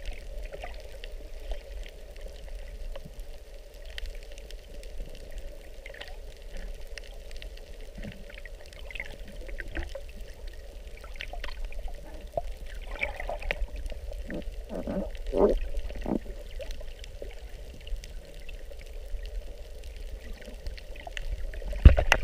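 Underwater sound picked up by a camera in its waterproof housing: a steady low rumble of the sea with a faint hum, scattered small clicks, and a run of louder gurgles a little past the middle.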